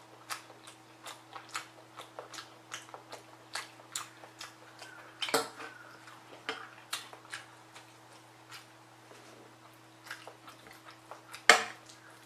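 Close-up chewing of a mouthful of black bean sauce rice, with many small wet mouth clicks. A metal spoon clinks against the ceramic bowl a couple of times, loudest about a second before the end.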